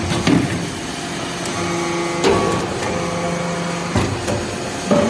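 Hydraulic briquetting press running: a steady hydraulic pump hum whose pitch shifts with the load, broken by a knock about every one to two seconds as the ram's stroke changes.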